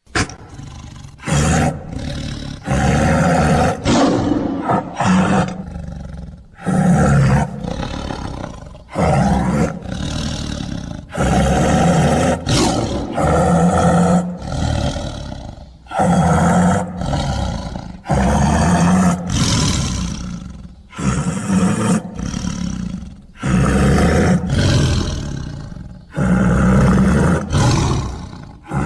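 Loud beast-like roaring sound effect, repeated over and over, with a fresh roar about every two seconds.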